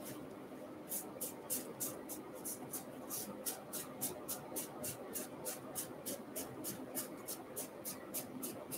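Heritage Minors baseball cards being thumbed one by one from one hand to the other, each card giving a light flick. The flicks come at an even pace of about four a second, starting about a second in.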